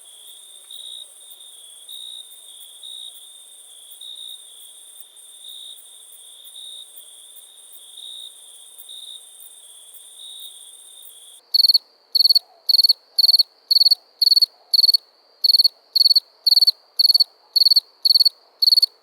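Crickets chirping: a quiet, continuous high trill with soft pulses, then about eleven seconds in an abrupt switch to a louder cricket giving sharp, evenly spaced chirps about two a second, a little higher in pitch.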